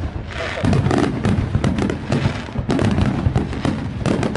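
Fireworks display: many aerial shells bursting in quick, irregular succession, with dense bangs and crackling.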